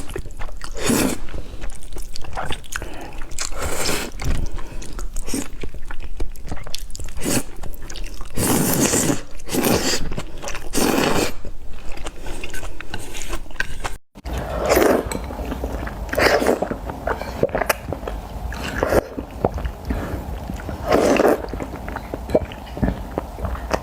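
Someone eating spicy instant fire noodles: a run of irregular chewing and biting mouth sounds, with a momentary drop out about fourteen seconds in.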